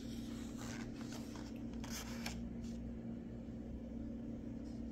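Paper rustling and crackling as the pages of a large picture book are handled and turned, a series of short rustles in the first half, over a steady low hum.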